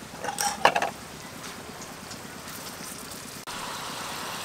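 Slices of beef frying in butter in a wide pan, sizzling steadily. There are a few sharp clicks of metal tongs against the pan in the first second.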